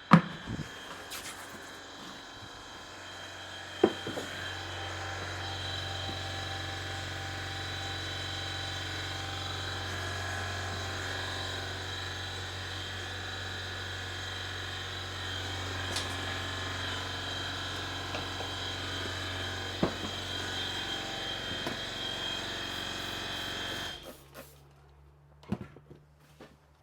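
Tire changing machine running steadily, a low motor drone with a thin high whine, with a few sharp clunks as it works the tire. It stops suddenly about 24 seconds in.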